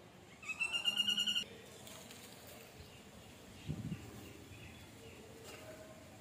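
A bird's loud, rapid trilling call lasting about a second, starting about half a second in. A soft low thump follows near the four-second mark.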